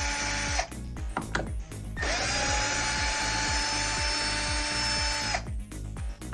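Cordless drill-driver running at steady speed on door hinge screws, in two runs: a short one that stops about half a second in, then a longer one of about three and a half seconds. Background music with a steady beat plays underneath.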